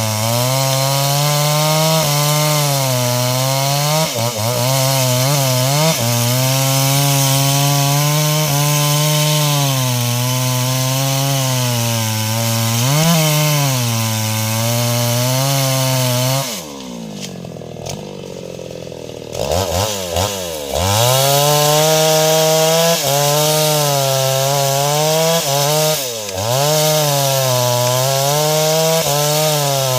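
Stihl MS 381 two-stroke chainsaw running at full throttle while cutting wood, its pitch wavering as it bogs under load. About two-thirds of the way through it falls off to idle for a few seconds, then revs back up and cuts again.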